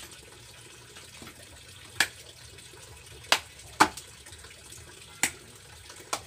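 Knife chopping through a tulingan (bullet tuna) on a cutting board: five sharp knocks at uneven intervals over a faint steady rushing noise.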